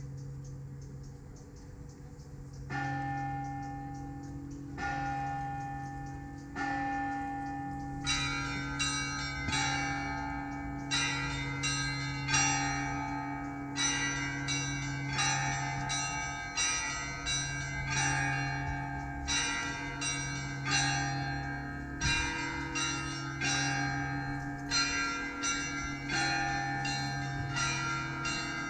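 Russian Orthodox cathedral bells being rung. A low bell hums throughout, with a few slow single strokes about two seconds apart. From about eight seconds in, smaller bells join in a fast, ringing pattern of several strokes a second.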